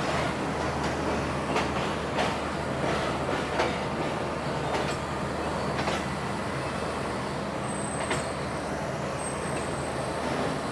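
Pakistan Railways passenger coach rolling slowly, heard from its open door: a steady low hum, with wheels knocking over rail joints every second or two. A faint high squeal comes near the end as the train brakes.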